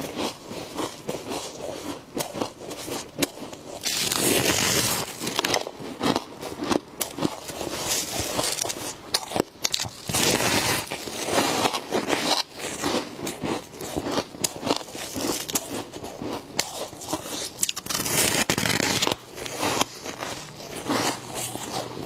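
Frost being bitten and crunched close to the microphone: many sharp crunches, with several longer scraping crunches.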